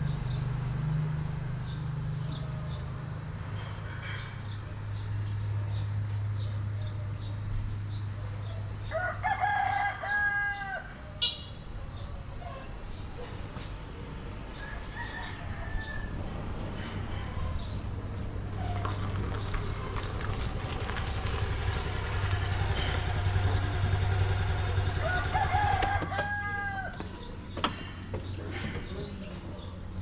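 A rooster crowing twice, about ten seconds in and again near the end, over a steady high-pitched whine and a low hum.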